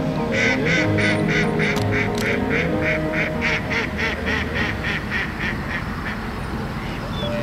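A duck quacking in a long rapid run of calls, about four a second, fading toward the end, over soft background music.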